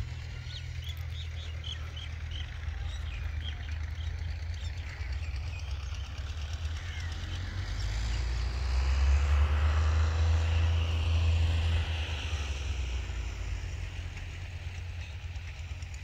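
Outdoor field ambience: wind rumbling on the microphone, with a small bird chirping a quick run of about eight notes near the start. The rumble swells louder for a few seconds in the middle, about eight to twelve seconds in.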